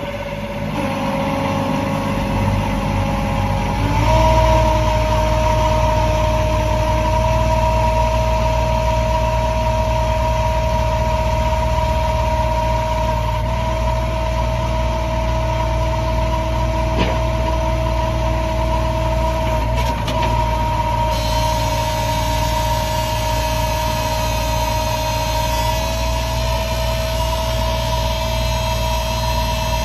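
Bobcat 453 skid steer loader's small Kubota diesel running steadily, with a steady whine over the engine note. The engine speed and loudness step up about four seconds in.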